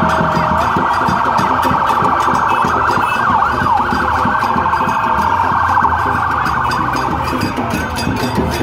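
Several police motorcade sirens sounding at once, a fast warble with slower rising and falling wails over it.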